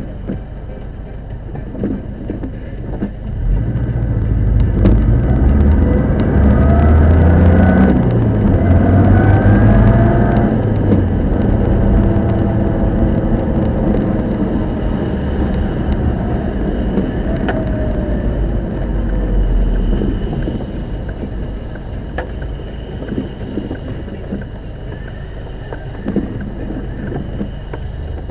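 Subaru Impreza GC8 driving, engine and drivetrain pulling harder from about three and a half seconds in, with whining tones that rise and fall, then easing to steadier running. The owner takes the noise for an abnormal sound from the center differential.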